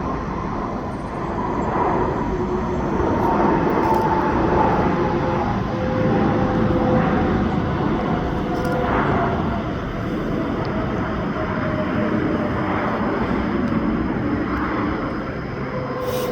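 Jet airliner passing close by, its engines' rumble with a whine that slowly falls in pitch, swelling a couple of seconds in and easing off a little toward the end.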